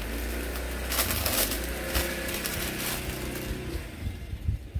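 Fabric and plastic packaging rustling as a clothing set is handled and unfolded, over a steady droning hum that fades out after about three and a half seconds.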